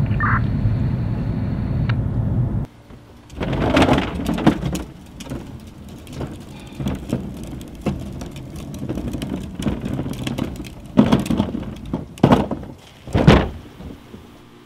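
Steady low road and engine rumble inside a moving car at night, cutting off suddenly about three seconds in. Then comes a quieter stretch broken by irregular noisy swells and knocks; the loudest is near the end.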